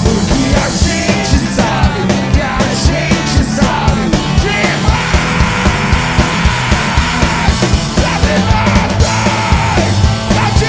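Live rock band playing a fast, loud song with a steady driving drum beat and shouted vocals.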